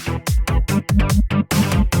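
Electronic dance music with a heavy kick-drum beat and falling bass sweeps.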